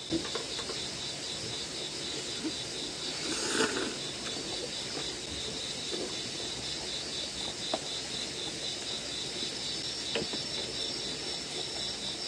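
Crickets chirping in a steady pulsing rhythm, with a few faint clicks over it.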